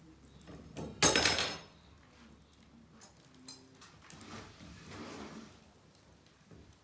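A sharp metallic clatter with a brief ring about a second in, then softer scraping and rustling, as of something being handled at the metal fire pit.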